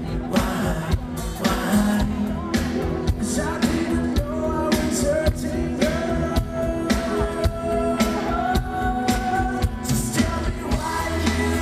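Live pop-rock band through a festival PA: electric guitar and a steady drum beat, with a male voice singing held notes over them, heard from within the audience.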